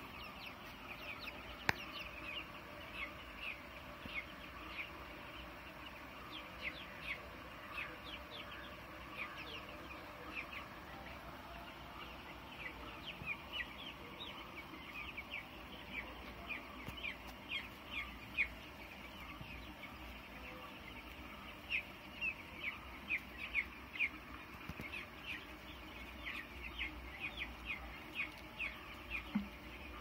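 A large flock of young broiler chicks peeping without pause: many short, falling chirps overlapping one another. One sharp click sounds near the start.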